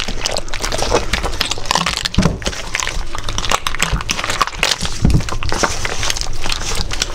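Raw octopus being kneaded and rubbed by hand with plenty of salt, a continuous dense gritty crackling. This is the salt wash that scrubs the slime off the octopus before it is boiled.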